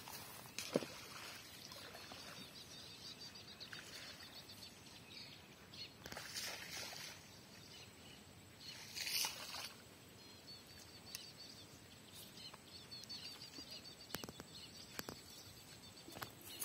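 Quiet outdoor ambience with a few short clicks and brief rustles, and faint bird chirps.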